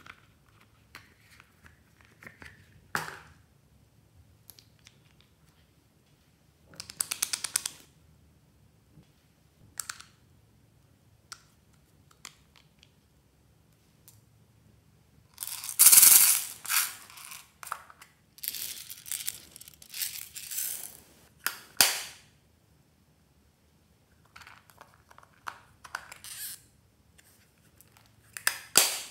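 Close handling noises from small plastic toy containers being opened and small beads and blue pieces tipped into trays of slime: a series of short rustles and clicks with quiet gaps between, the loudest about sixteen seconds in.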